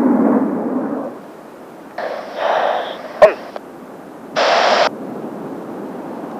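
Rumble of Kawasaki T-4 jets fading away about a second in. After that come two short bursts of hiss that start and stop abruptly, with one sharp click between them.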